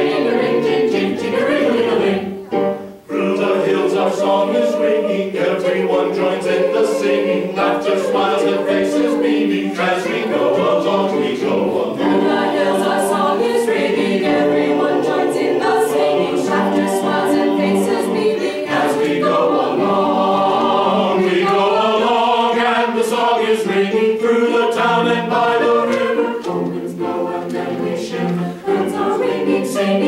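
A small mixed choir of men and women singing in harmony, with a brief break in the sound about three seconds in.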